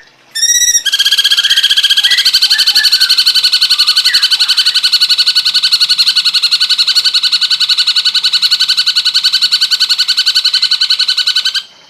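Recorded song of a cucak cungkok bird: a short opening note, then one long, fast trill of evenly repeated notes at a steady pitch, about ten a second, that stops suddenly near the end. A few faint chirps sound beneath it early on.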